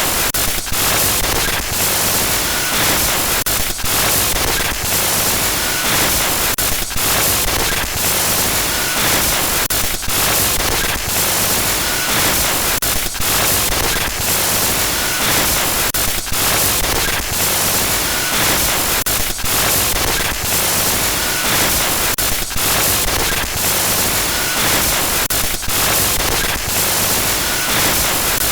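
Harsh electronic glitch noise: loud, dense static hiss across the whole range, chopped by frequent brief dropouts and stutters.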